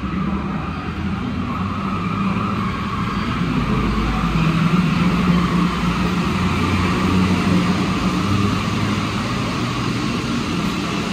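Alstom NS-93 rubber-tyred metro train pulling into the station. Its running noise and steady low hum grow louder over the first few seconds as it comes alongside, then hold steady.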